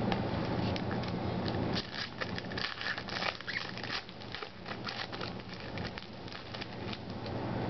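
Foil wrapper of a 2008 Upper Deck Icons football card pack crinkling and tearing as it is opened by hand. It makes a dense run of sharp crackles, thickest in the middle.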